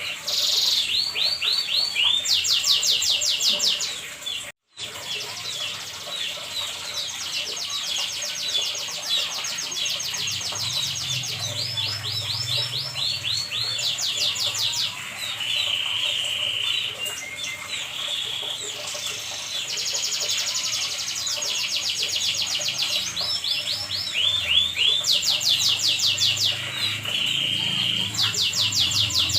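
Domestic canary singing a long, unbroken song of rapid trills and rolls, high-pitched and fast-repeating. The sound cuts out completely for a split second about four and a half seconds in.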